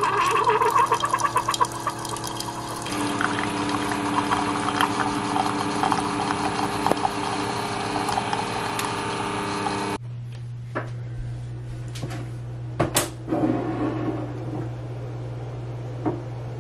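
Single-serve coffee maker brewing, hot coffee streaming into a ceramic mug over the machine's steady running noise. About ten seconds in, this cuts off suddenly and gives way to a quieter steady low hum with a few knocks and clinks.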